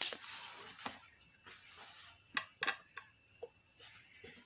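Rustling of a soft gun case being opened, followed by a few light clicks and taps as the rifle is handled.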